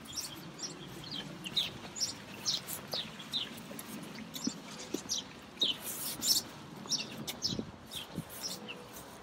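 Songbirds chirping: a stream of short, high chirps, several a second.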